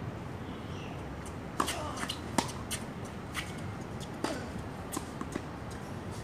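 Tennis balls struck by rackets and bouncing on a hard court during a rally: a string of sharp pops, the loudest about a second and a half, two and a half and four seconds in, over steady outdoor background noise.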